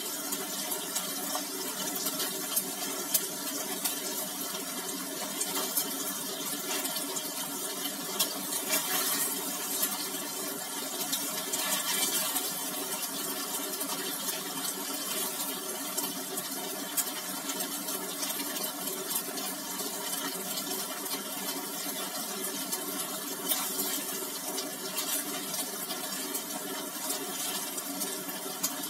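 Tofu slices frying in hot oil in a wok: a steady sizzle with crackling pops throughout.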